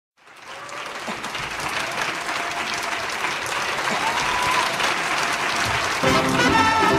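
Audience applause that fades in at the start. About six seconds in, music strikes up over it.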